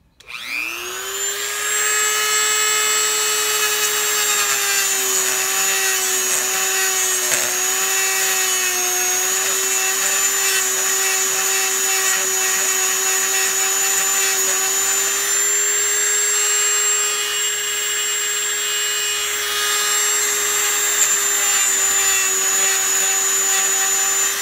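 Dremel rotary tool spinning up quickly and then running steadily with a high whine, its sanding drum grinding inside the knot hole of a plastic shaving-brush handle to smooth and round it out.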